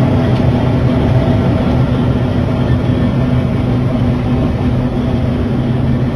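Combine harvester running steadily with its unloading auger swung out and turning: a constant machine drone with a steady low hum.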